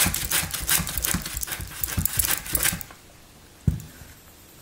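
Russet potato being pushed with a gripper across the blade of a handheld mandoline slicer, with quick scraping cuts at about three or four strokes a second. The strokes stop a little under three seconds in, and a single knock follows.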